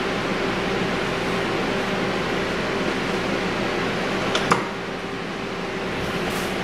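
Steady fan hum with a faint low tone, with a single sharp click a little after four seconds in.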